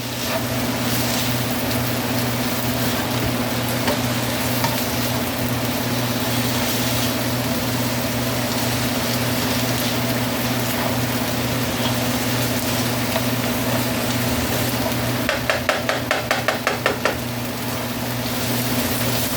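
Green peppers and mushrooms sizzling in a frying pan with a little olive oil. About fifteen seconds in comes a quick run of stirring strokes, several a second, in the pan.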